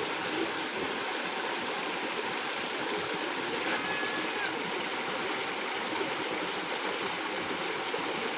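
River water running steadily over rocks, a constant rushing hiss.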